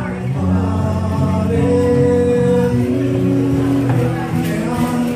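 Live worship music: singing at a microphone over acoustic guitar, with long held notes above a low bass line.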